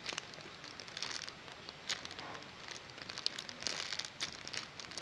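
Light drizzle pattering, a steady hiss broken by many irregular drip ticks and crackles.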